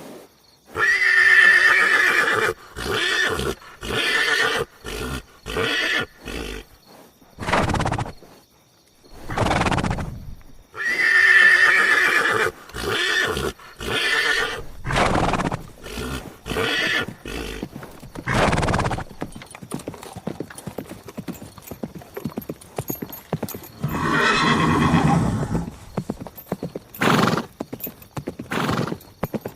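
Horse neighing: a long whinny about a second in and a matching one about ten seconds later, with many shorter calls and hoof clops between.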